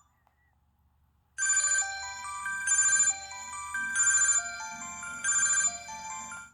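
LG 430 mobile phone playing one of its preloaded ringtones: a bright electronic melody that starts about a second and a half in, with a loud chiming figure repeating about every 1.3 seconds and lines of notes stepping downward in between, stopping shortly before the end.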